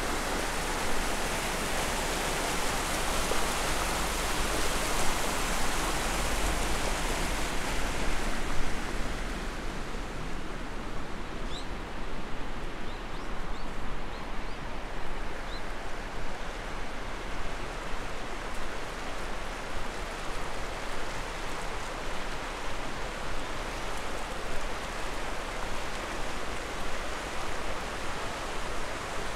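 Steady rush of a shallow river flowing over stones, becoming less hissy after about nine seconds. A few faint high bird chirps come through in the middle.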